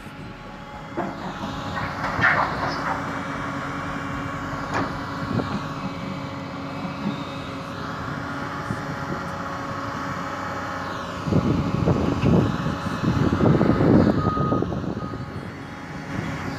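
Hydraulic excavator engine running steadily while it handles large steel pipe sections. A few knocks come early on, and louder irregular scraping and clanking of the pipe builds from about two-thirds of the way through.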